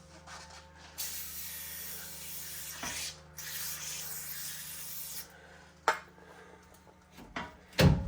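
Aerosol can of Fluid Film spraying in two long hissing bursts, about two seconds each with a brief break between, as lubricant is sprayed into a leaf spring's rub block. A sharp knock follows, then a louder thump near the end.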